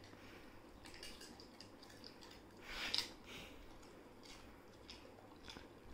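Labrador retriever eating a pani puri off a sofa cushion: faint wet chewing and smacking with a few soft clicks, one louder smack about three seconds in.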